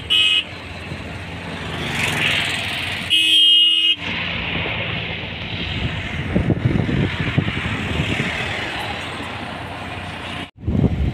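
Road traffic heard from a moving vehicle: a vehicle horn toots briefly at the start and again, louder and longer, about three seconds in, over steady road and wind noise.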